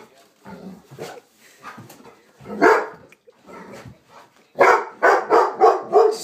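Golden retriever barking: one bark a little over two and a half seconds in, then a quick run of five loud barks near the end.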